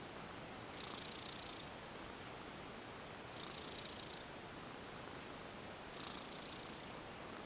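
Domestic cat purring steadily while being massaged, with a soft hiss that comes and goes about every two and a half seconds.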